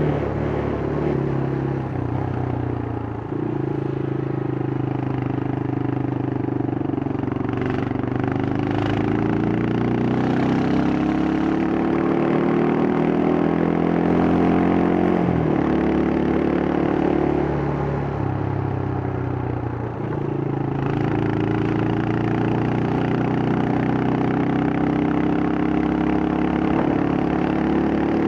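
Yamaha Scorpio's single-cylinder four-stroke engine and standard exhaust under way, pulling through the gears. The pitch climbs steadily, drops sharply at gear changes about three, fifteen and twenty seconds in, then climbs again.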